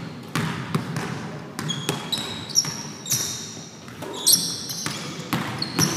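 A basketball bouncing on a hardwood gym floor in irregular thuds, mixed with short high-pitched sneaker squeaks as players cut and stop on the court.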